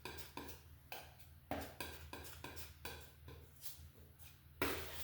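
Oil paint being worked with irregular short scrubbing strokes, about one or two a second, the loudest one near the end, over a steady low hum.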